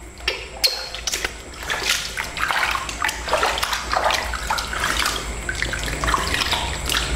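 Water splashing and sloshing in a plastic basin as a hand scoops and pours it over a baby monkey, in many irregular splashes.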